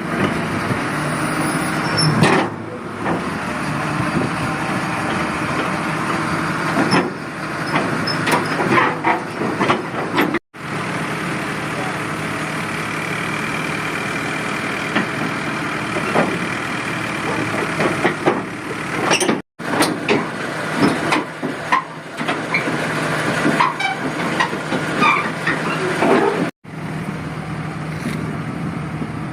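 Diesel excavator engines running under load, with scattered metallic clanks and a high whine for several seconds in the middle. The sound cuts off abruptly three times and restarts.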